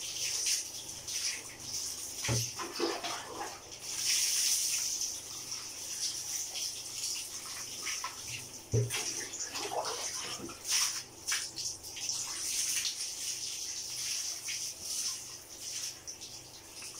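Water poured from a plastic tub over a wet dog, running and splashing in surges, with two knocks about two seconds in and again near nine seconds in.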